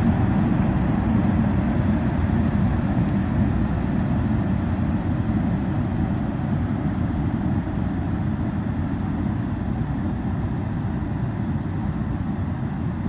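Two-section electric locomotive running light and moving away, a steady low rumble of motors and wheels on rail that slowly fades.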